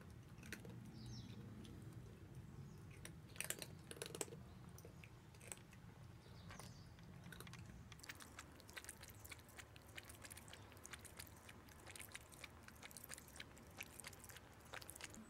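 Cats chewing and crunching food, a scatter of sharp crunches; about halfway through, a cat lapping water from a ceramic bowl takes over as a fast, steady run of small wet clicks.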